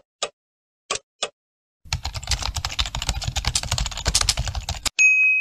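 Intro sound effects: countdown ticks in pairs, then about three seconds of rapid computer-keyboard typing, then a single bright ding near the end that rings on briefly.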